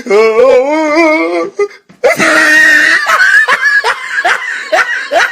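A person laughing hard. It opens with a long wavering high laugh, breaks off briefly, then gives a loud shrieking burst at about two seconds in and goes on in rapid short bursts of laughter.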